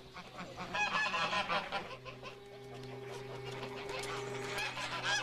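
A flock of domestic geese honking, with a cluster of calls about a second in and another at the end.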